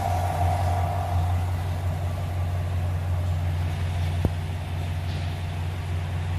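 Engine of a 2021 GM full-size SUV idling with a steady low hum, and a single sharp click about four seconds in.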